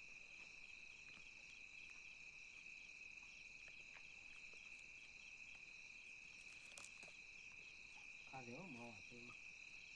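Insects, cricket-like, chirring in a steady, faint high-pitched trill, with a brief voice in the background near the end.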